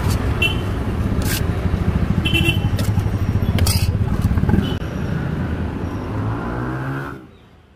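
A few sharp clicks and scrapes of a spoon against a steel pot and a foil tray as sweet corn is served, over a steady low rumble. Everything fades out near the end.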